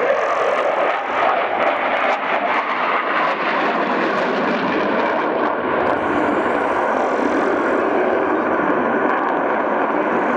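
MiG-29 fighter in display flight overhead: loud, steady jet noise from its twin RD-33 turbofan engines.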